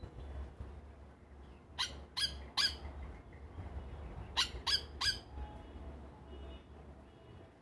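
Yellow oriole calling: two quick series of three short, harsh call notes, the series about two and a half seconds apart, over a low steady background rumble.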